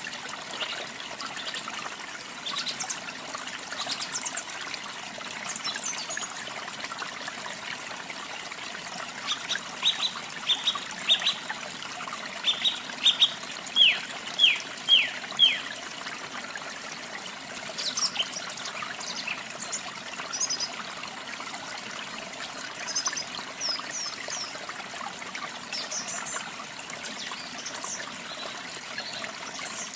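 Songbirds calling over a steady rush of running water. About a third of the way in, one bird gives a run of about a dozen short, downward-sliding whistled notes, the loudest thing here; higher, thinner chirps follow later.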